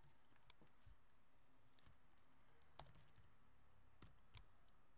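Computer keyboard keystrokes typed slowly: about eight faint, separate key clicks at uneven intervals over a quiet background hiss.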